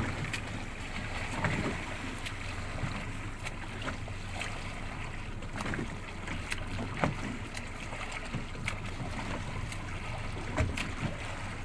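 Boat under way: a steady low motor hum under wind and water noise, with scattered short knocks.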